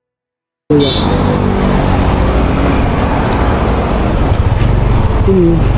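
Motorcycle engine running with a steady low pulsing, cutting in abruptly less than a second in after silence, heard from a camera on the bike.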